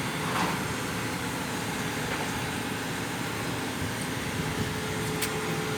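Large machine's engine running steadily, a continuous mechanical din with a steady hum over it.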